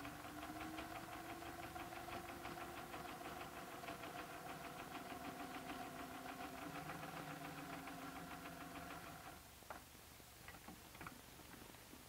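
Sewing machine stitching a fabric-covered belt: a fast, even run of stitches over a steady hum, which stops about nine seconds in, followed by a few light clicks.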